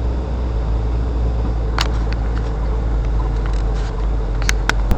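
Car driving on an unpaved dirt road: a steady low rumble of engine and road noise, with a few sharp clicks, once about two seconds in and three in quick succession near the end.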